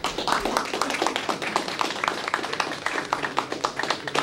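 A small audience applauding: many pairs of hands clapping, with separate claps standing out.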